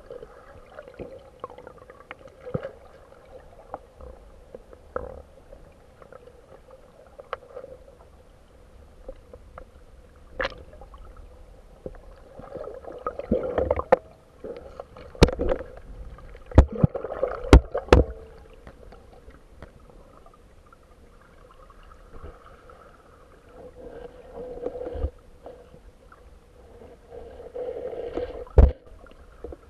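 Muffled water sloshing and gurgling heard through a submerged camera, with scattered sharp clicks. A run of loud knocks comes about fifteen to eighteen seconds in, and one more near the end.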